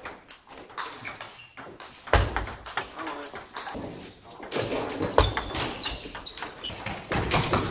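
Table tennis balls clicking off bats and bouncing on tables, many short irregular clicks from serves and from rallies at nearby tables, with a couple of heavier thumps.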